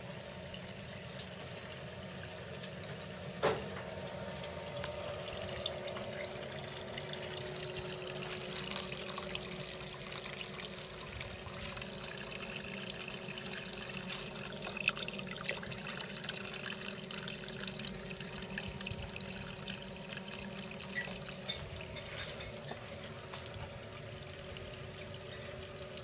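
Water running from the mixer tap of a pumped camping sink into the basin, with a steady hum underneath. There is a single sharp click about three and a half seconds in.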